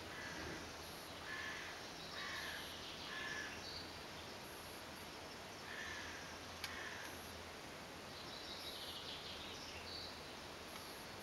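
Birds calling: short, repeated calls every second or two over steady low outdoor background noise, with one sharp click about two-thirds of the way through.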